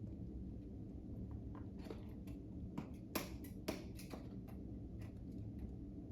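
Sharp clicks and taps from a craft knife working on a cardboard Lego box: a scatter of light ticks with three louder clicks close together in the middle.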